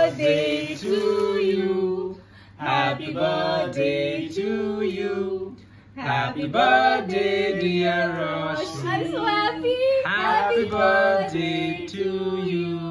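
Singing led by a female voice, in phrases with long held notes and two short breaks.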